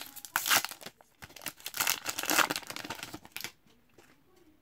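Wrapper of an Upper Deck Tim Hortons Team Canada hockey card pack crinkling and tearing as it is ripped open by hand, in uneven crackly bursts that stop about three and a half seconds in.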